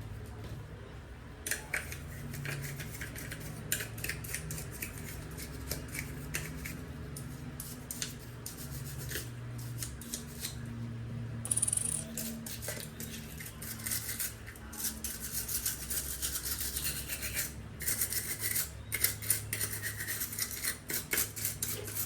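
Repeated small scraping, rubbing and snipping clicks from hand-cleaning the parts of a Dyson V8 cordless vacuum, coming thicker and louder from about halfway through.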